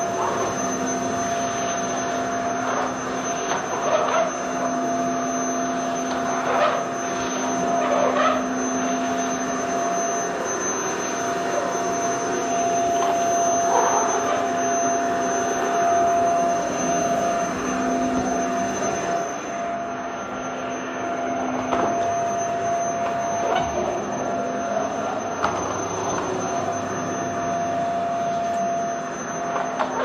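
Vacuum cleaner running steadily: a continuous rush of air over a constant motor hum, with a few short bumps now and then. The sound turns slightly duller about two-thirds of the way through.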